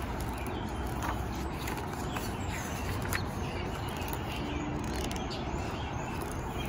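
Small birds chirping faintly over a steady low rumble of outdoor air, with a few light clicks and rustles as the pages of a hardcover book are turned.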